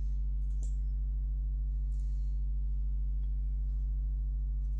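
Steady low electrical hum with a stack of even overtones, the mains hum in the recording, with a couple of faint clicks.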